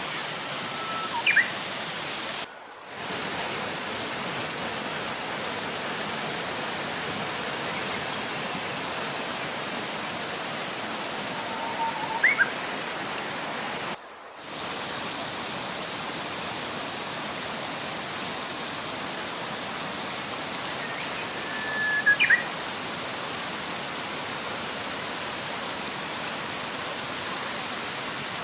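Mountain stream water rushing steadily, with a bird giving a short chirp three times, about ten seconds apart. The sound cuts out for a moment twice.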